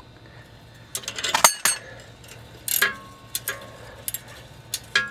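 Metal hand tools clicking and clinking against the outer tie rod end while the old cotter pin is levered out of its castle nut: several sharp, scattered metallic clicks with a brief ring, the loudest about a second and a half in.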